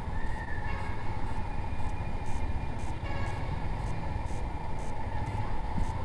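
Yamaha SZ-R motorcycle's single-cylinder engine running steadily at low speed, a continuous low rumble.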